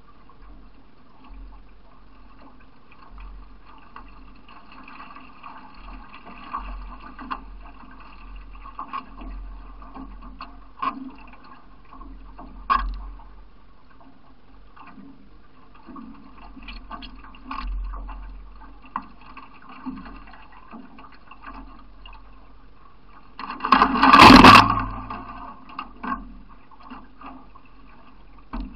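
Water washing around the bow of a C1 racing canoe as it is paddled downriver, with occasional sharp knocks. Near the end comes a loud rush of splashing water lasting about a second and a half.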